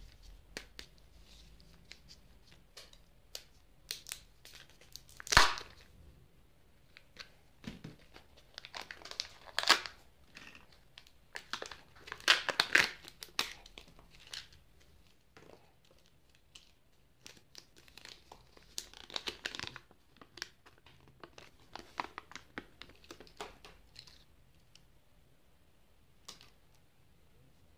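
A Kinder Joy egg being unwrapped and opened by hand: the foil wrapper tearing and crinkling in bursts, with a sharp snap about five seconds in, then light clicks and rattles of small plastic toy parts being handled.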